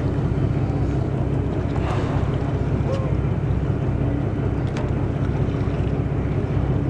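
A boat's engine droning steadily, a constant low hum, with wind buffeting the microphone over it.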